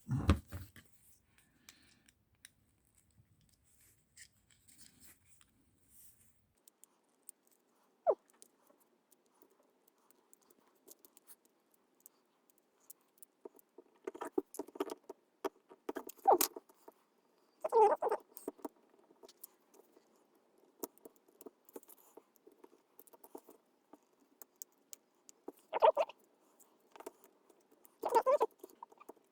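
Small plastic parts clicking and scraping as a washing machine door interlock is prised apart by hand, with a few louder scrapes in the second half.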